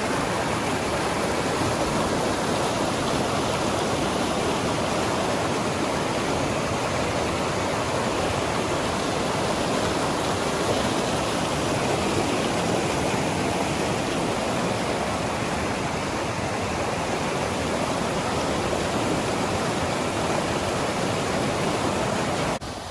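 Waterfall's falling water rushing in a steady, dense roar, with a sudden drop in level near the end.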